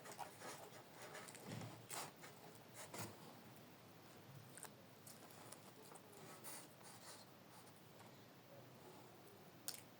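Faint rustling and scattered small clicks of kit parts and packaging being handled, against quiet room tone.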